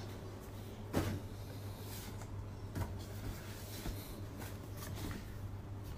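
Quiet room with a steady low hum and a few soft knocks and clicks. The loudest knock comes about a second in.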